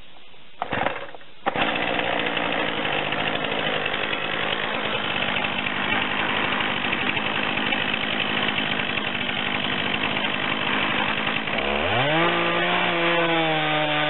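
Stihl MS251 two-stroke chainsaw in a Granberg Alaskan chainsaw mill. After a brief burst it runs steadily from about a second and a half in, then revs up sharply near the end and holds high with a wavering pitch as it bites into the log.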